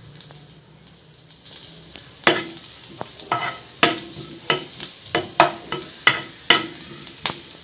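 A spoon stirring in a frying pan of butter and garlic, knocking against the pan about twice a second from about two seconds in, over a soft sizzle.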